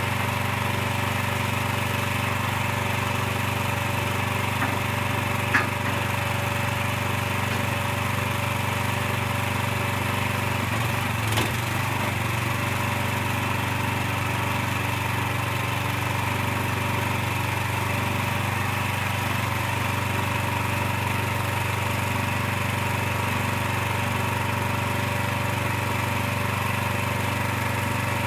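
Small single-cylinder gasoline engine on a portable truck scale's hydraulic power unit, running steadily at a constant speed while the scale deck folds in. Two brief sharp clicks, about five and eleven seconds in.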